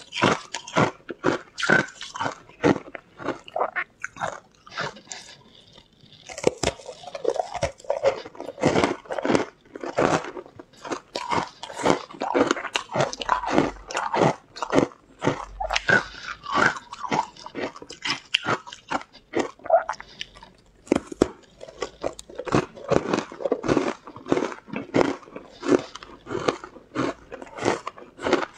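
Close-miked mouth sounds of frozen ice sticks coated in green powder being bitten and chewed. Quick, sharp crunches run on and on, easing off briefly about four to six seconds in.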